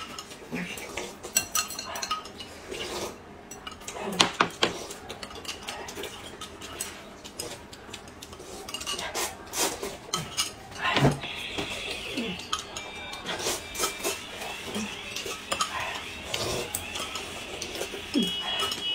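Eating at a table: chopsticks clicking and knocking against porcelain bowls and glass mugs, with noodles being slurped now and then.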